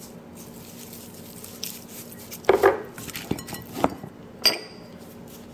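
A utensil clinking and knocking against a dish a few times while crab meat is seasoned with salt and pepper for a marinade; the knocks come in the second half, the loudest first.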